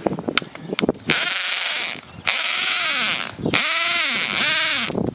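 Cordless drill driving a small auger bit into dry, hard planting-hole soil, run in several short bursts with a gritty grinding and the motor's whine rising and falling in pitch as the trigger is squeezed and the bit bites and slows.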